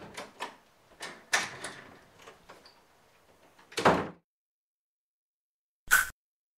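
A house door being opened and pulled shut: a few clicks and knocks, then a loud thud about four seconds in. A single short, sharp knock follows near the end.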